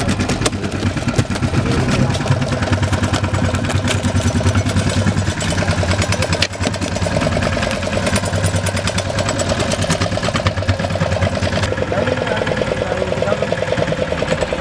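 Fishing boat's engine running steadily, with an even, rapid chugging pulse.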